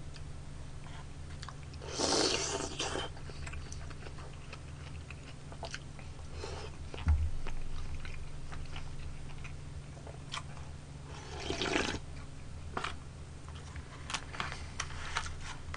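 A person eating close to the microphone: chewing, with two louder slurps from a bowl, about two seconds in and again near twelve seconds, and light clicks of chopsticks against the bowl.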